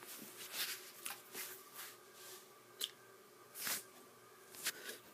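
Faint, scattered short clicks and rustles, about seven in five seconds, with no burp or voice among them.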